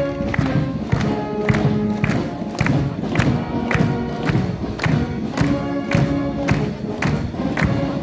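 Brass band playing a march, with a drum beat about twice a second.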